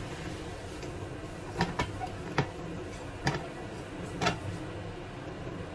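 Wooden chopsticks clicking against a frying pan while stirring a sauce: about five sharp, irregular taps over a steady background hiss.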